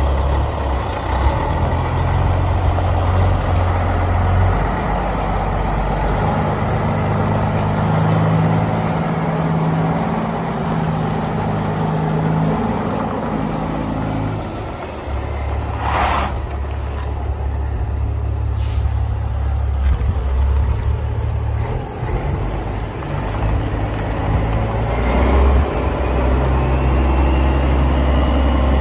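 2008 Peterbilt 388 road tractor's diesel engine idling with a steady low rumble, and a short burst of air hiss from its air system about halfway through.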